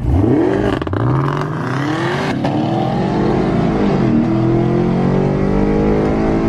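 Ford Coyote 5.0 V8 of an S550 Mustang, heard from inside the cabin, accelerating hard and climbing in pitch through the gears, with a drop in pitch at each upshift.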